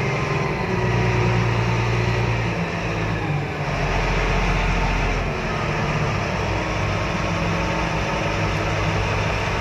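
Caterpillar 777 haul truck's diesel engine running under way, heard from inside the cab as a steady loud drone whose low note changes in steps a few times.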